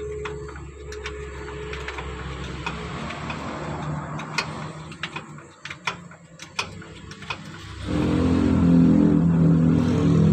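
Scattered sharp metallic clicks and knocks over a steady low rumble, typical of hand tools working on a truck's starter-motor bolts. About eight seconds in, loud background music starts suddenly and drowns them out.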